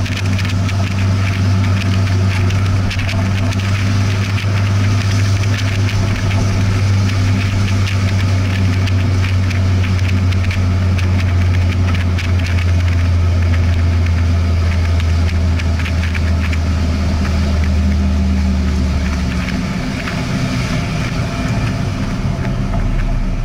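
Car engine running at low, steady revs, heard from inside an open-top car with wind and road noise over it. A little past three-quarters of the way through, the engine note drops as the car slows.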